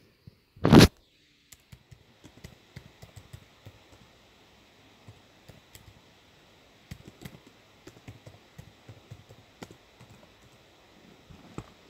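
A loud, short noise about a second in, then faint, irregular clicking and tapping over a low hiss.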